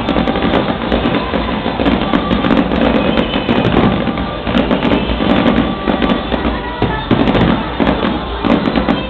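Fireworks display: many aerial shells and ground bursts going off in quick succession, a dense run of sharp bangs and crackles.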